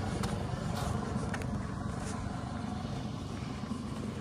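Chevy Colorado's 2.8-litre Duramax four-cylinder turbodiesel running under load as it tows a car-hauler trailer up a rocky trail, a low steady rumble.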